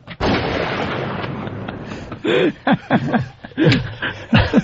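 A sudden burst of noise that dies away over about two seconds, followed by men chuckling and laughing in short bursts.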